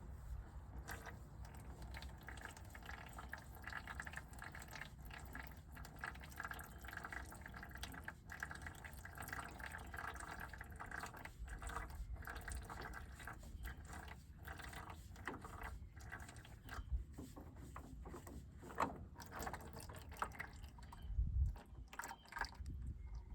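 Hydraulic oil running and dripping into an empty 5-gallon oil bucket as the suction screen cover is loosened, with many small clicks and clinks of wrench work. A few louder knocks come near the end.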